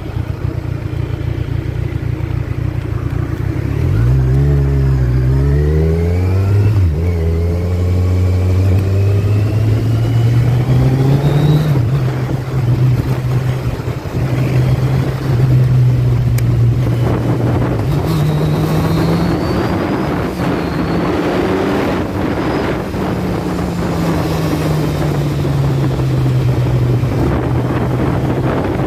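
2017 Kawasaki Z1000's inline-four engine on its stock exhaust, pulling away a few seconds in with its pitch climbing, dipping briefly and climbing again, then running at a steady note that rises and falls a little, under wind and road noise.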